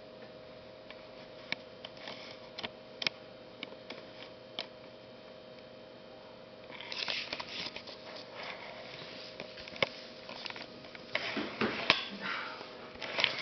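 Close handling noise on the camera's own microphone over a steady low hum. A few isolated clicks come first, then from about halfway a run of rustling and clicking as the camera is moved about.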